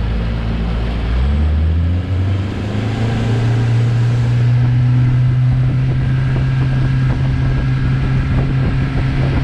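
Bass boat outboard motor running under way. Its pitch rises as the boat accelerates over the first few seconds, then holds steady at speed.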